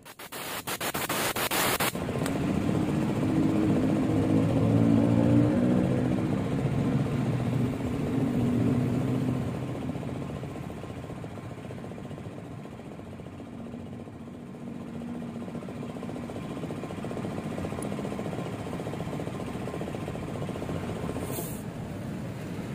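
Minerva R150 motorcycle engine starting, with about two seconds of clatter before it settles into running. It runs at raised revs for the first several seconds, then drops to a lower idle about ten seconds in. This is the rough running sound whose cause is being diagnosed.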